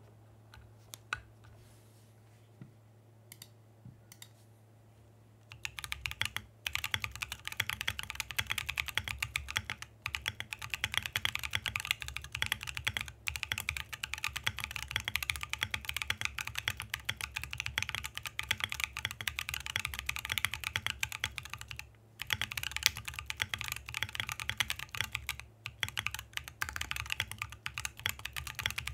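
Typing on a Portal65 mechanical keyboard fitted with stock Cheesecake switches (POK housings, LY stems, dual-stage spring, factory-lubed), an FR4 plate, O-ring mount, no foam and PBT dye-sub keycaps. A few separate key clicks for the first five seconds or so, then fast continuous typing with a handful of brief pauses.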